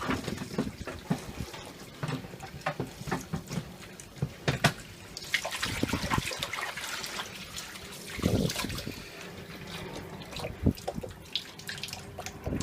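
Tap water running into a sink as the Bissell carpet cleaner's dirty-water tank is rinsed out, with frequent knocks and clatters from handling it; the water runs strongest about five to eight seconds in.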